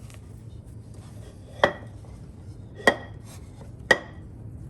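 Three sharp clinks of kitchenware about a second apart, each with a brief ringing tone.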